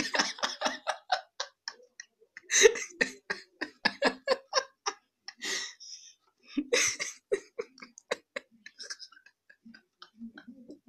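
A person giggling in several bouts of quick bursts.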